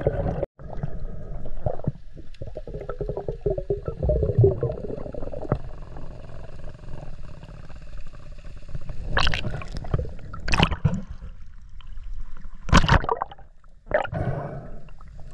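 Water sloshing and gurgling around a camera at and just below the sea surface, muffled and low. The sound cuts out briefly about half a second in, and four short, loud splashing bursts come in the second half.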